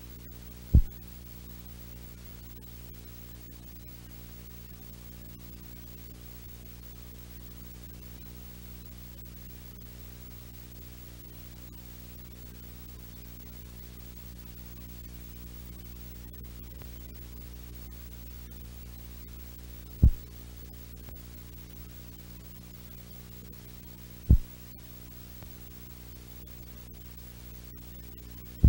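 Steady low electrical hum on the sound track, with four brief, sharp low thumps: one about a second in, two a few seconds apart later on, and one right at the end.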